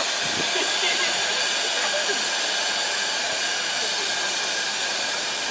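Steady hiss of steam from a showman's road locomotive standing in steam.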